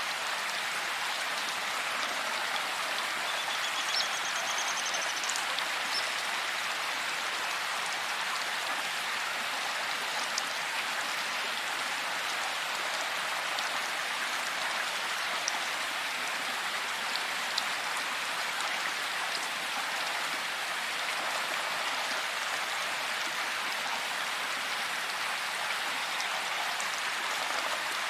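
Steady heavy rain falling, an even hiss of drops, with a few faint high chirps a few seconds in.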